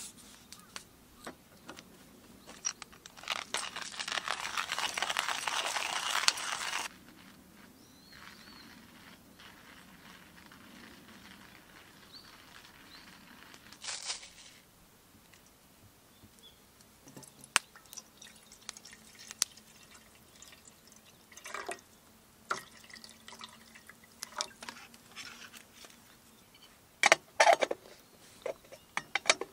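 Hand-made pour-over coffee preparation: a steady pour lasting about three and a half seconds, then scattered light taps and clicks of metal utensils and kettle on a table, with a cluster of louder clinks near the end.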